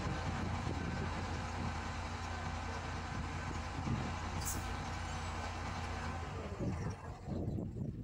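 Mobile crane's diesel engine running steadily with a deep hum, a short high hiss about four and a half seconds in. Near the end the sound changes and its higher part falls away.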